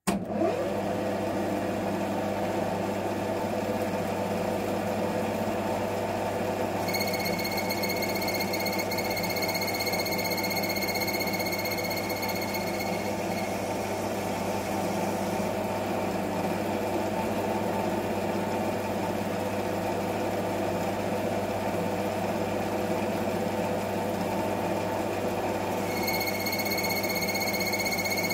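Metal lathe starting up and spinning up, then running steadily while the outside diameter of a stainless steel sleeve is turned with a carbide tool. A high steady whistling tone comes in about seven seconds in, stops some six seconds later, and returns near the end.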